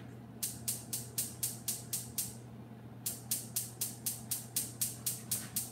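Gas range spark igniter clicking at an even rate of about four or five clicks a second as a burner is lit, with a pause of about half a second midway. A low steady hum lies underneath.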